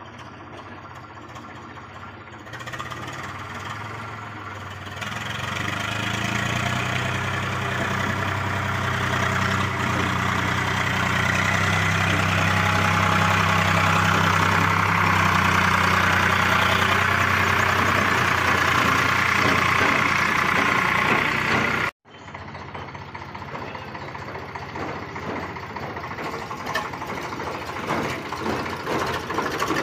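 Eicher farm tractor's diesel engine running as it tows a trolley. It grows steadily louder as the tractor approaches and passes. After a sudden break about three-quarters of the way through, the engine is heard again, quieter.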